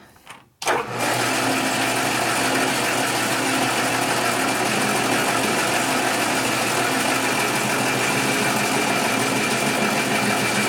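Metal lathe switched on about a second in, then running steadily, its spindle and chuck turning with a constant mechanical whir and hum.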